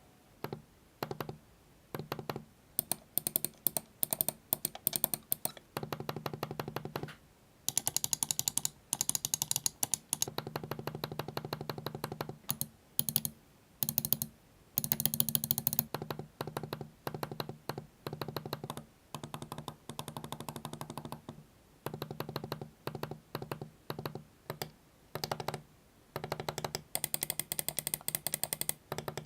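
Computer mouse buttons clicked rapidly over and over, in runs of a second or more with short pauses between, as several mice are compared for click noise.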